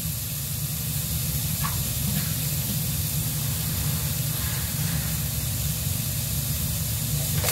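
Meat, tomato, onion and garlic sautéing in a wok: a steady sizzling hiss with a low, even rumble beneath it.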